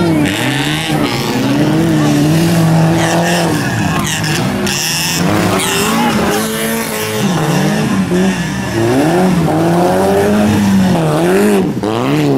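Autocross race cars' engines revving hard on a dirt track. Several engine notes climb and drop again and again as the drivers work the throttle and change gear through the turns.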